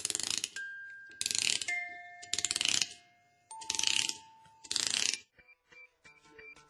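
Intro sound effects: five short rapid-clicking, ratchet-like bursts about a second apart. Each burst leaves a ringing tone at a different pitch, and faint clicks and tones follow near the end.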